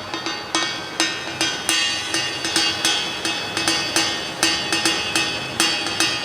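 Live percussion: an uneven run of sharp strikes, about two to three a second, each leaving a ringing tail.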